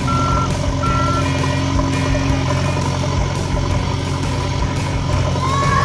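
A construction vehicle's reversing alarm beeps twice early on over a steady engine hum, and the engine keeps running after the beeps stop.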